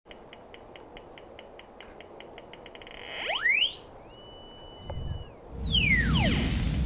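Electronic sound-effect intro in the manner of a metal detector: short high beeps about five a second that quicken as if closing in on a target. Then a tone sweeps up to a high steady whine, holds for about a second, and sweeps back down as a low rumble comes in.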